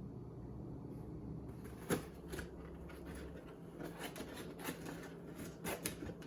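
Faint handling noises from unpacking an electric kettle: soft rustles and scattered light clicks and knocks, the sharpest about two seconds in.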